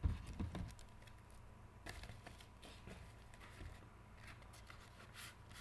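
Trading cards and their plastic holders being handled on a desk: scattered light clicks, taps and rustles, with a knock right at the start.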